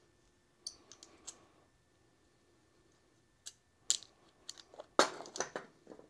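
Scattered light clicks and taps as a heavy battery cable with a freshly crimped lug is handled and checked, with a sharper knock about five seconds in.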